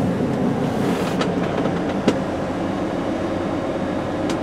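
Truck's diesel engine idling, heard from inside the cab, while the air compressor builds brake pressure toward governor cutoff. A couple of light clicks come about one and two seconds in.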